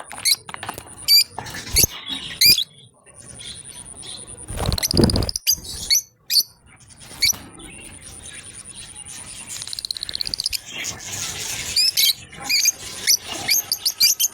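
Lovebirds chirping: short, sharp, high-pitched chirps in quick series, with a louder rustling burst about five seconds in.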